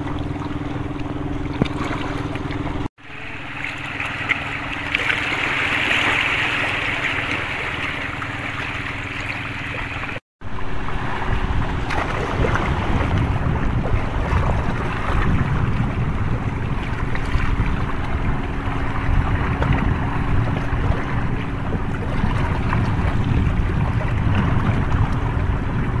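Sea waves washing against shore rocks, with wind buffeting the microphone and a faint steady low hum underneath. The sound drops out abruptly twice, briefly each time.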